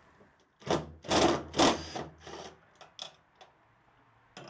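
Cordless driver with a socket running in three or four short bursts, spinning out a 13 mm nut, then a few light clicks.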